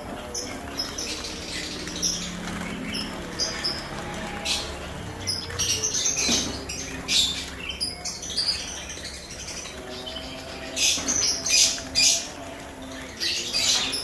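A flock of caged olive-backed sunbirds chirping: many short, sharp, high-pitched calls overlapping, with a flurry of calls about five seconds in and again near the end, and some wing fluttering. A low steady hum runs underneath.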